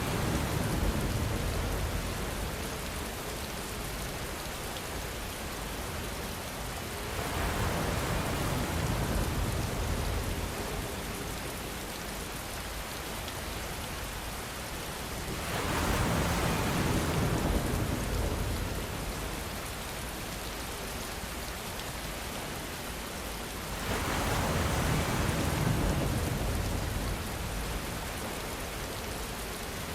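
Steady rainfall, swelling louder about every eight seconds and then easing back.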